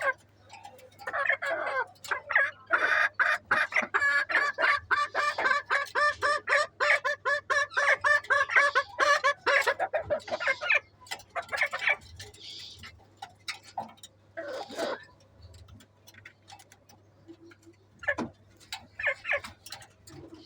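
Native village chickens clucking, with a long run of rapid repeated clucks for about ten seconds, then only a few scattered calls near the end.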